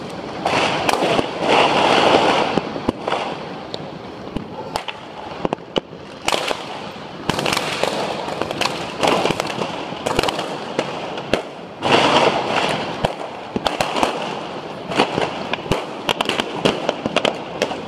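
Fireworks and firecrackers going off all over the city: a steady scatter of sharp bangs and cracks, with louder stretches of dense crackling about a second in and again around twelve seconds in.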